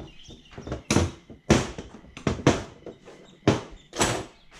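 Several sharp knocks and clatter as tools and the reassembled idle stepper motors are handled and set down on a workbench, about five hard knocks spread over a few seconds.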